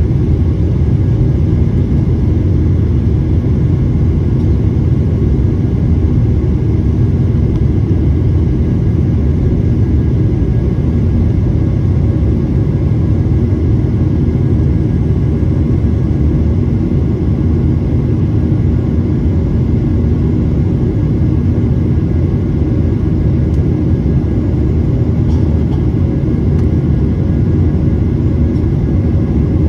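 Jet airliner's engines and rushing air heard inside the passenger cabin during the climb after takeoff: a loud, steady low rumble that stays even throughout.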